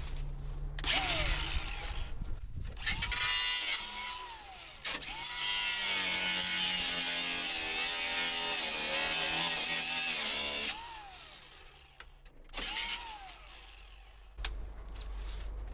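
Cordless power tool run in short trigger bursts, each spinning up and winding down, with one long run of about five seconds in the middle. This is the work of taking bolts and rivets out of a car door.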